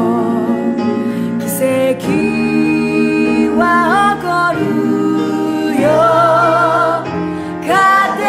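Music: a woman singing with instrumental accompaniment, holding long notes with vibrato.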